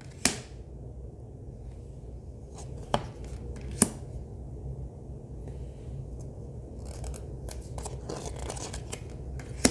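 Oracle cards being flipped through by hand: a few sharp snaps of cardstock in the first four seconds, then a stretch of cards sliding and rustling against the deck near the end, over a low steady hum.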